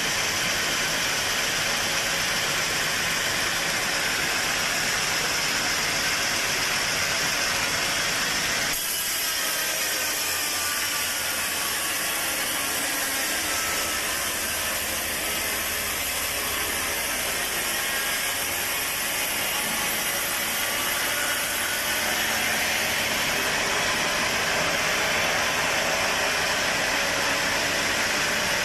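Sawmill machinery running steadily, the saw and its motor making a constant mechanical noise. The sound changes abruptly about nine seconds in, with a faint rising whine just after.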